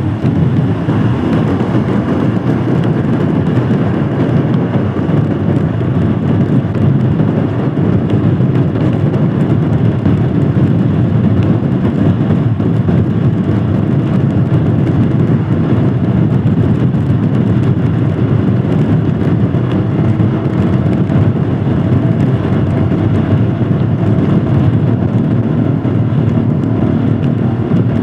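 Royal Enfield Scram 411's single-cylinder engine running steadily on the move, mixed with road noise, at an even pace with no clear revving.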